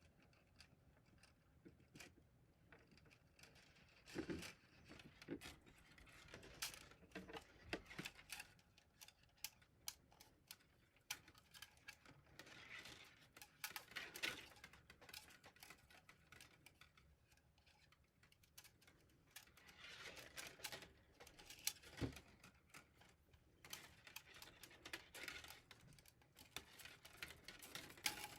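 Faint, irregular clicks, taps and rustles of filament and a plastic spool being handled and wound by hand.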